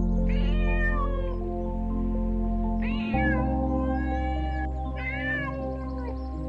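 Domestic cat meowing about four times, each call rising and falling in pitch, over background music with long held chords.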